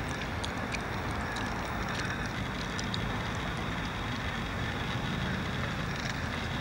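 A steady noise, strongest in the low range, with short faint high chirps scattered through it from a large flock of birds flying in to roost.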